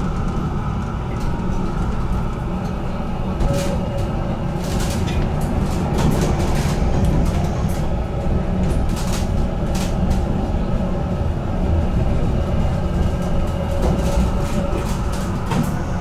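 HTM GTL8 tram running on its rails: a steady low rumble with scattered short clicks and knocks from the wheels on the track.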